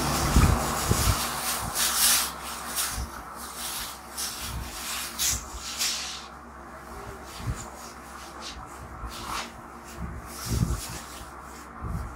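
A thin disposable barber's cape (dust cloth) rustling as it is shaken out and draped over a seated customer, loudest in the first half, then softer rustles and a few low bumps as it is settled and fastened at the neck.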